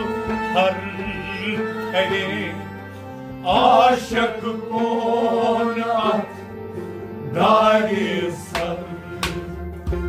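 Kashmiri Sufi kalam: a male singer sings over a steady harmonium drone, with a bowed sarangi and clay-pot (nout) percussion. His voice swells into loud, wavering held notes twice, a few seconds in and again later.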